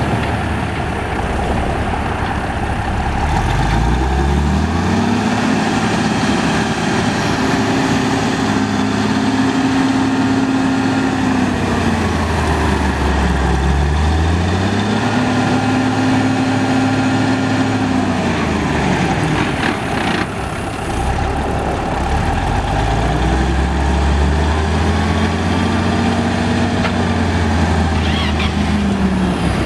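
The Cummins six-cylinder turbo diesel of a 1984 International cabover tank truck, driving. Its pitch climbs, holds and falls back three times as the truck accelerates and then eases off. There is a single sharp click about two-thirds of the way through.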